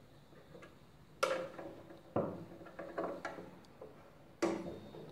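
A handful of sharp metallic knocks and clinks, roughly one a second, each ringing briefly. They come from an Allen key and the sheet-metal housing of a Lombarte BDX 48 belt-and-disc sander being worked while the motor's drive-belt tension is set.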